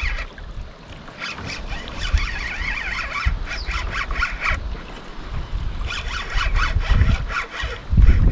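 Fishing reel squealing in uneven bursts with rapid clicking, as line runs against the reel. A low rumble comes in near the end.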